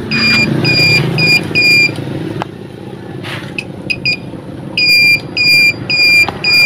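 Motorcycle turn-signal beeper sounding a high electronic beep about three times a second, in time with the flashing turn signal. It breaks off for a few seconds midway, then resumes.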